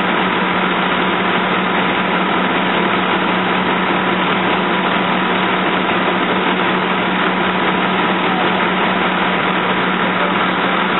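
A vehicle engine idling steadily, an even running noise with a constant low hum that does not change.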